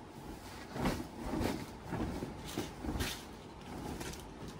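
Soft rustling and light knocks of a bed sheet and its packaging being handled, coming irregularly about every half second to second.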